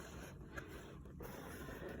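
Faint handling noise of toy packaging: cardboard and plastic shifting, with a few light clicks.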